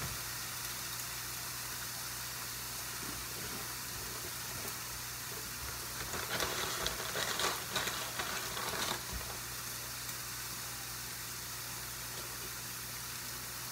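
Pork cutlets frying in a pan on medium heat: a steady sizzle, with a stretch of louder crackling and spitting between about six and nine seconds in. A low steady hum runs underneath.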